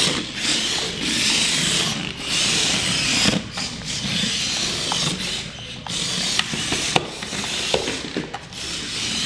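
Air Hogs Hyper Tracks remote-control toy vehicles driving over a wood floor: their small electric motors and tracks whir and clatter, surging and dropping as they are steered, with a few sharp clicks.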